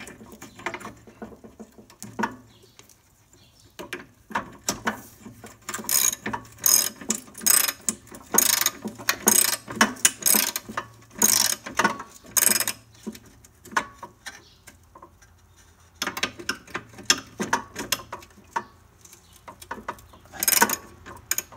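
Socket ratchet wrench clicking as a nut is tightened, in runs of quick back-and-forth strokes about two a second, with a pause after the middle. The first few seconds hold quieter handling of the nut and washer as they are started by hand.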